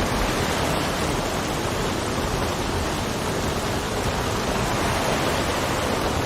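Steady rain, an even hiss that does not change.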